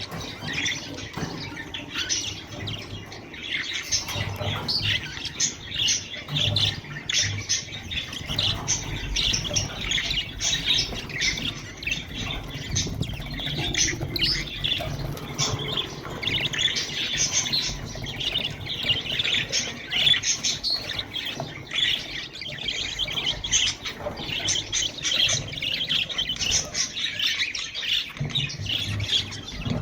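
Budgerigars chirping and chattering continuously, many short calls overlapping.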